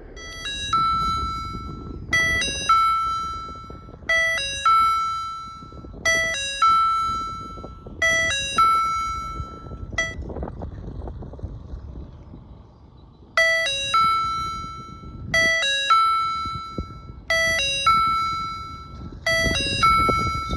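Railway level-crossing warning signal sounding an electronic two-note ding-dong chime, repeating about every two seconds. It pauses for about three seconds midway, then resumes, over a low rumble.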